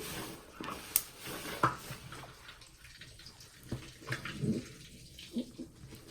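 Soapy sponge squeezed by hand: irregular wet squishes and crackles of lather, with a sharp click about a second in.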